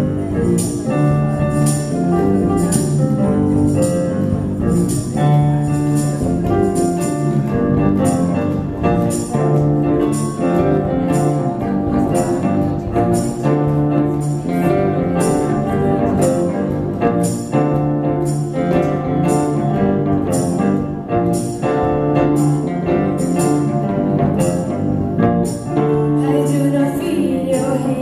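Acoustic rock band playing an instrumental passage of a song, with pitched instruments over a steady percussion beat.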